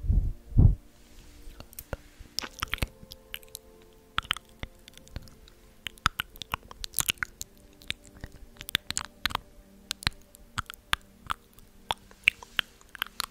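Close-miked ASMR trigger sounds: irregular crisp clicks and crackles, several a second, with two heavy thumps on the microphone within the first second.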